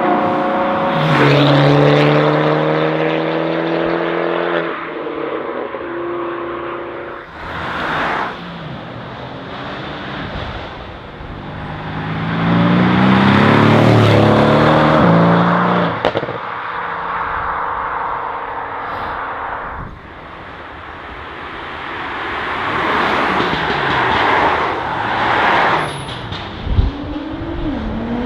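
Sports cars accelerating hard past one after another. Each engine's pitch climbs through a gear and drops abruptly at the shift, and a fresh rush of noise marks each pass. Another car starts revving up near the end.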